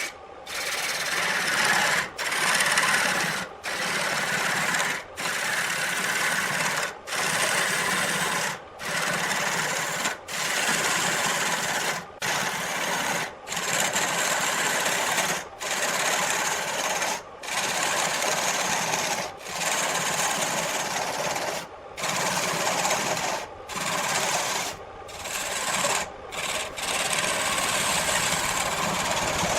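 Wood lathe running with a turning tool cutting the spinning wood: a steady rasping hiss, broken by brief drops every second or two.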